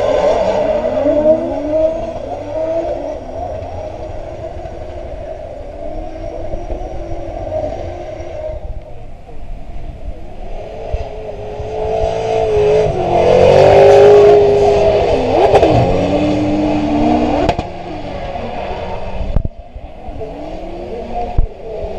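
Drift cars' engines revving hard, the pitch climbing and dropping again and again as the cars slide through the corner. It is loudest about two thirds of the way through.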